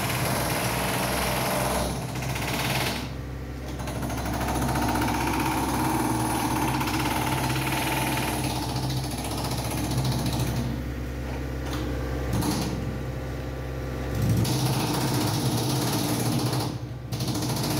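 Chipping hammer rattling rapidly as it breaks hardened concrete out of a transit mixer drum, with a steady low hum underneath. The hammering stops briefly several times and starts again.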